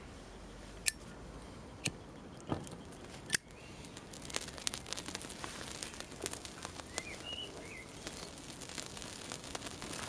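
A few sharp clicks, then the crackle of flames catching and spreading across a wooden board, small pops and ticks coming thick and fast from about four seconds in.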